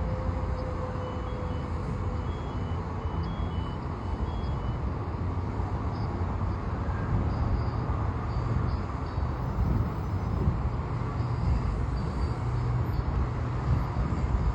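Heavy fire-truck engine running steadily with a low rumble. A quick run of faint, short high beeps sounds over it for the first few seconds.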